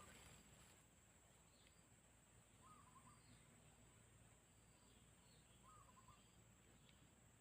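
Near silence: quiet outdoor ambience with two faint, short bird calls and a few fainter high chirps over a steady high-pitched hum.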